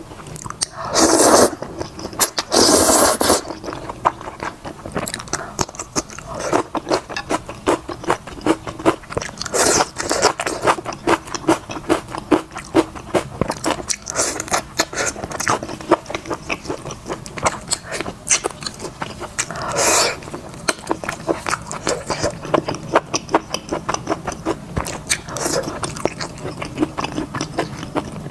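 A person eating wide belt noodles and braised chicken: steady wet chewing with many small mouth clicks, broken by several loud slurps, two in the first few seconds and others about ten and twenty seconds in.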